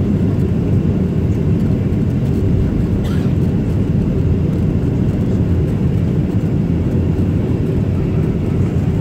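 Steady low rumble inside an airliner cabin, engines running as the plane rolls or taxis after landing.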